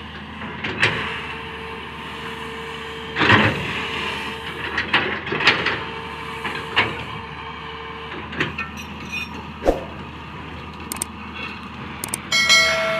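Komatsu PC200 excavator's diesel engine running steadily under hydraulic load, with a faint steady whine, while the bucket scrapes and crunches through crushed stone in about eight short, sharp clattering bursts.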